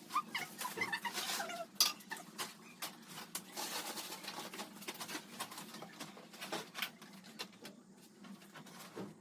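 Plastic food containers and lids being handled and set down: scattered light clicks and knocks, busiest in the first half.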